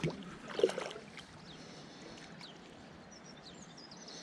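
Steady rushing of a swollen, flooded river, with a sudden loud knock just after the start and a sharper one a little over half a second in. Birds chirp faintly in the background.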